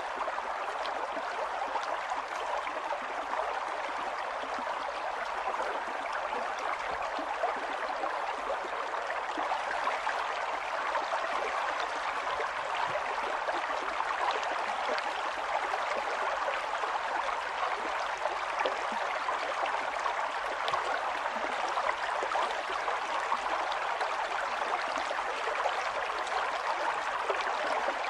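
Running water of a mountain stream, a steady rushing and babbling flow.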